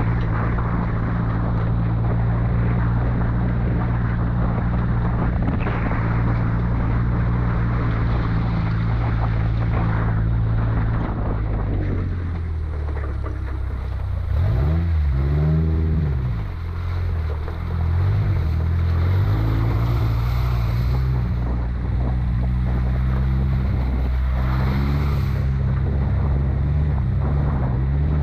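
Off-road vehicle engine running steadily, then revved up and back down about halfway through, with a couple of smaller rises and falls in engine pitch after that.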